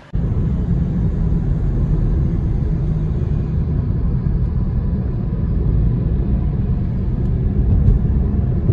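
Steady low rumble of a car driving along a road, heard from inside the cabin: engine and road noise.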